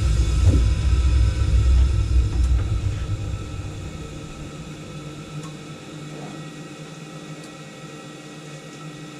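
Ideal Independent Plus C30 combi boiler running, back up after being repressurised from an F1 low-pressure fault: a loud low rumble for the first two and a half seconds that then drops away, leaving a quieter steady hum with faint steady tones.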